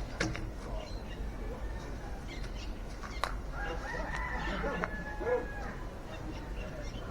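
A rooster crowing once, about four seconds in, for roughly a second. A couple of sharp knocks come before it.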